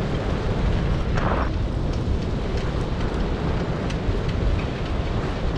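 Steady rumble of a wheeled dog-team rig rolling fast over a dirt road, with wind noise on the microphone and a short hiss about a second in.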